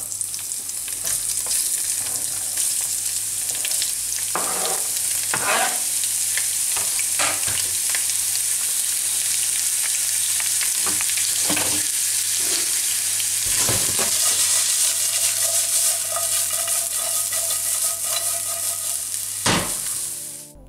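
Julienned carrot, zucchini and onion sizzling in hot vegetable oil in a frying pan: a steady, even frying hiss, the sound of a properly hot pan. A few scattered clatters of utensils against the pan as the vegetables are pushed in and stirred.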